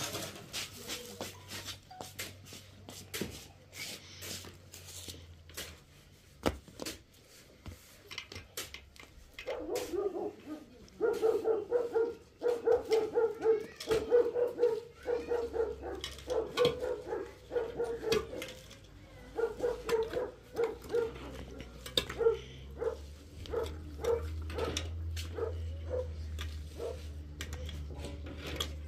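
A dog barking in quick runs of short barks, several a second, starting about a third of the way in and thinning out after two-thirds. Before the barking there are scattered sharp knocks or clicks.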